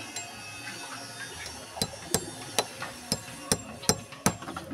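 Claw hammer driving a nail into a concrete block wall: about seven sharp strikes starting about two seconds in, two to three a second.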